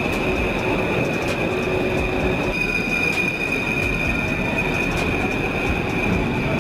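Subway train moving out along an underground platform: a steady rumble of running noise with a high-pitched wheel squeal held at one even pitch.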